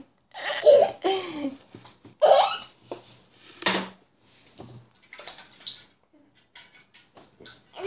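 A small child laughing in short bursts, with wet squelching of slime being stretched and squeezed by hand.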